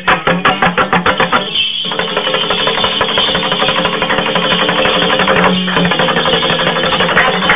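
Afghan folk music instrumental break: a dambura, the long-necked Afghan lute, strummed very fast and evenly over a steady low drone, with no singing.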